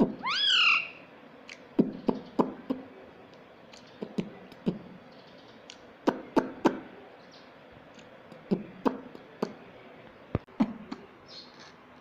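Indian ring-necked parakeet giving one loud rising-and-falling screech at the start, then a scattered series of short, low clicking sounds.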